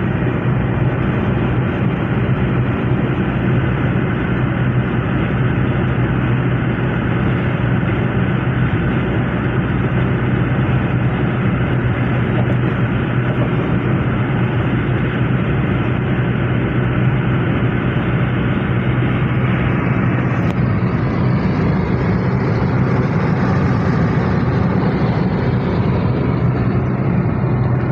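Toyota Revo pickup cruising at motorway speed: steady engine and tyre-on-road noise with a constant low hum. About twenty seconds in, a higher hiss swells for several seconds and then fades.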